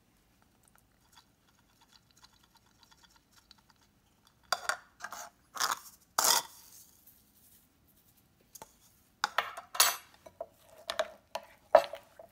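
Metal spoons clinking against glass bowls: a cluster of sharp taps about halfway through as salt is spooned into the yogurt, then more clinks and scraping as the yogurt is stirred in a glass bowl, some knocks leaving a short glassy ring near the end.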